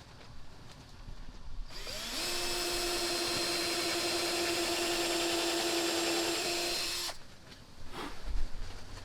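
Power drill running during table assembly: it spins up with a rising whine about two seconds in, runs at a steady pitch for about five seconds, then stops suddenly. A few light knocks follow near the end.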